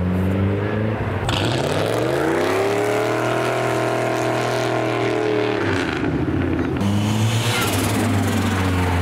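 Car engines at a meet's departure: one engine revs up over about two seconds as the car pulls away, holds its revs, then drops away about five seconds in, while another engine runs with a low steady drone close by.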